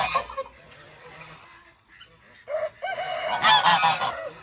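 Domestic geese honking: a run of loud calls dies away just as it begins, then a second chorus of overlapping honks starts about two and a half seconds in.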